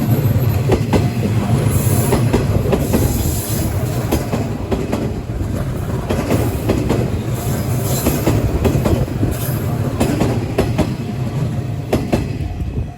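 JR West 201 series electric train running, its wheels rumbling and clicking over the rails, with stretches of high wheel squeal about two seconds in and again about eight seconds in.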